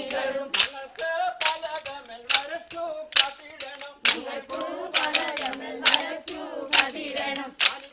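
Group singing a Kerala folk dance song with sharp hand-claps on a steady beat, roughly one to two claps a second, over the sung melody.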